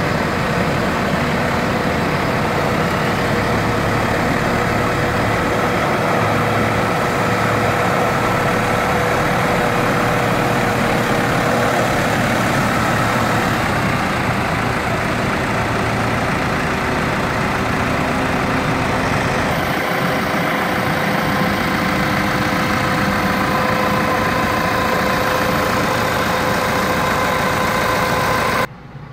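Diesel engine of a Massey Ferguson 3700 S series vineyard tractor running steadily. The engine sound drops away abruptly just before the end.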